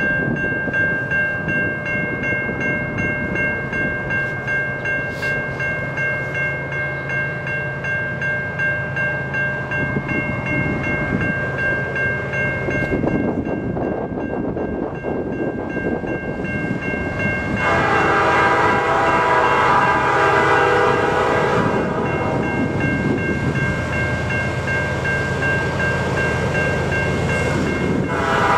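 Approaching freight train led by a GE ES44DC diesel locomotive, its engine rumbling steadily under load. About 17 seconds in, the lead unit's Nathan P5 five-chime air horn sounds one long blast of about four seconds, and a second blast starts near the end.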